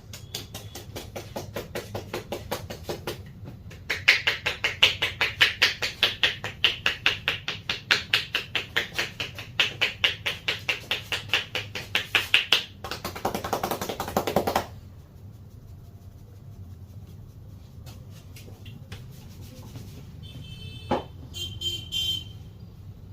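A barber's hands slapping and tapping in a rhythmic percussive head massage, about four to five strokes a second, with a shorter run before a brief pause. The strokes end in a couple of seconds of faster, blurred strokes that stop suddenly. Near the end comes a short high-pitched tone.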